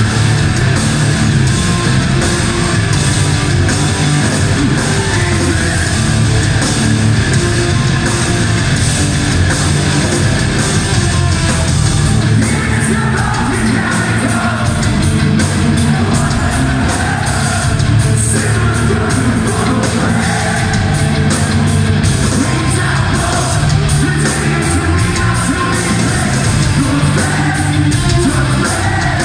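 Metal band playing live: distorted electric guitars, bass and drums with sung and yelled vocals, loud and continuous in a large hall.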